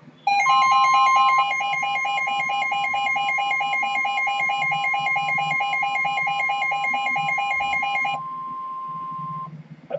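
NOAA Weather Radio warning alarm tone, a single steady high tone near 1050 Hz held for about nine seconds, announcing a severe weather warning. Over most of it a weather radio receiver's alert sounds as rapid pulsing beeps, stopping about a second before the tone ends.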